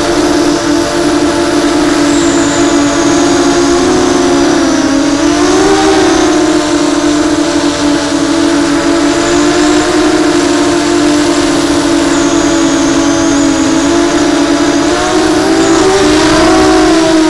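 Babybeast v2 brushless motors spinning 6-inch props on a 3D-printed Ridgeback 280 FPV quadcopter, heard from its onboard action camera: a loud, steady buzzing whine. The pitch wavers briefly about five seconds in and again near the end.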